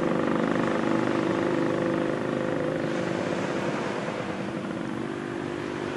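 Jet engines of a Boeing 737 climbing away after takeoff: a steady roar with a humming drone, slowly fading as the airliner moves off.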